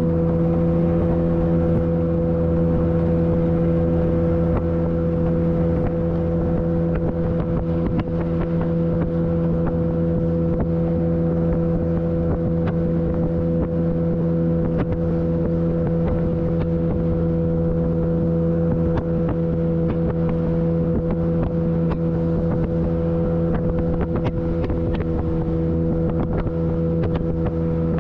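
Outboard jet motor of a small home-built polyethylene jetboat running at a steady cruising throttle, its pitch holding even, with scattered short knocks as the hull meets the chop.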